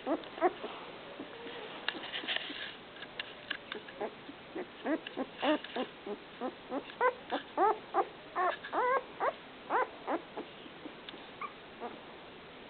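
Eleven-day-old puppies squeaking and whimpering in a run of short cries that rise and fall in pitch, coming thickest from about five to ten seconds in.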